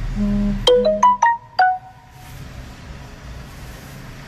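A short electronic alert tone: a brief low buzz, then four quick ringing notes in a little melody, each dying away. Faint car road noise continues underneath.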